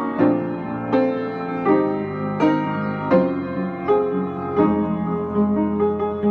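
Piano being played: a slow, even run of chords struck about once every three-quarters of a second, each left ringing into the next.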